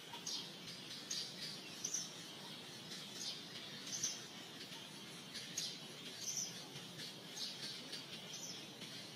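Small birds chirping: short, high chirps repeating irregularly, about one or two a second, over a faint steady background hiss.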